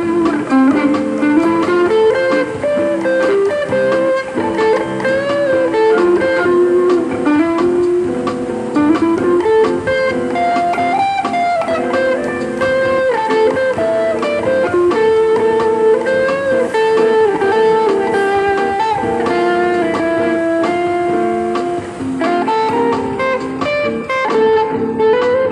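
Electric guitar improvisation: a continuous melodic line of picked notes stepping up and down, with some string bends.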